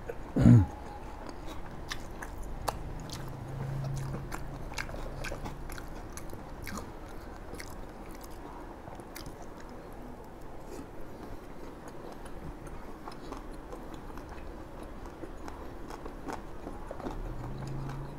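Close-up chewing and biting of crisp fried tofu and fried meat pieces, with many small crunches and wet mouth sounds. About half a second in there is one sudden loud low sound that falls in pitch, and there is a low closed-mouth 'mmm' around four seconds in and again near the end.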